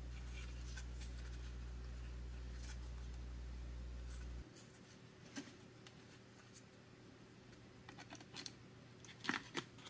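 Faint clicks and light handling noises of a digital multimeter's circuit board and plastic housing being handled, with a cluster of light clicks near the end as the board is fitted back into the case. A steady low hum sounds under it and cuts off suddenly about four and a half seconds in.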